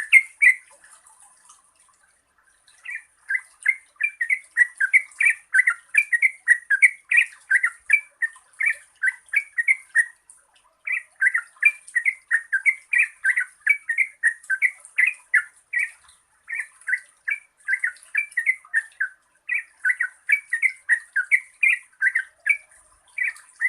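Yellow-vented bulbul singing a long, rapid run of bubbly, gliding notes, several a second, broken by a couple of short pauses.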